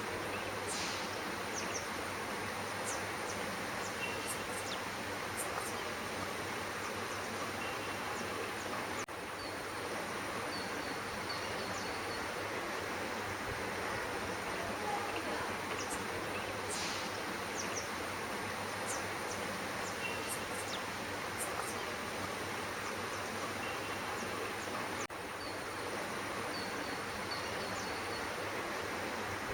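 Steady outdoor background hiss with a few faint, short high-pitched chirps scattered through it.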